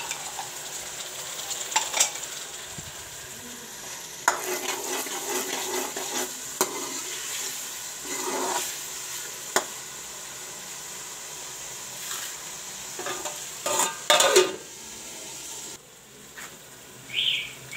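Chopped onions and tomatoes sizzling in a metal karahi, stirred with a metal spoon that scrapes and knocks against the pan every few seconds. The sizzle drops away briefly near the end.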